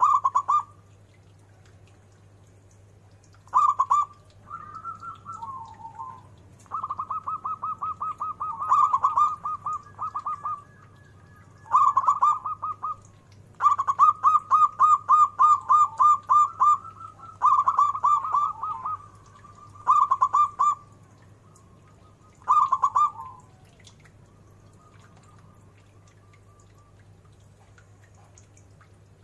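Zebra dove (perkutut) singing: repeated phrases of rapid, staccato cooing notes, each a second or two long, with short pauses between them.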